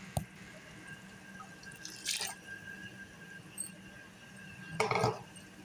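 Water going into a pan of simmering chicken, pea and potato curry: a sharp click just after the start, then two short splashing bursts about two and five seconds in.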